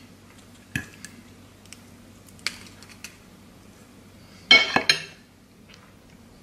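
Metal fork tapping and scraping against a ceramic plate a few times, then a louder clatter of clinks about four and a half seconds in as the fork is laid down on the plate.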